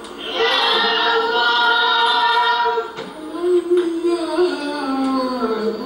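Unaccompanied voices singing a mawlid chant in long held notes, with a short break about three seconds in before the next phrase starts lower.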